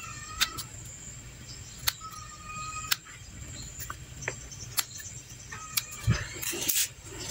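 Scissors snipping the old lower leaves off potted tomato plants: several short, sharp snips roughly a second apart, with some rustling of leaves near the end. A bird calls a couple of times in the background.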